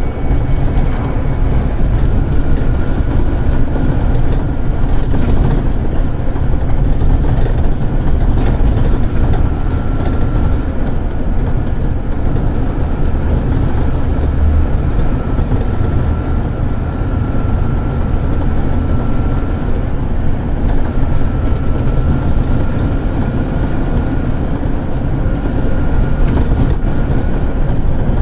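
Scania DC9 five-cylinder diesel of a Scania K280UD double-decker bus pulling hard under load, heard from inside the passenger saloon as a loud, steady low rumble. A faint high whine comes and goes over it.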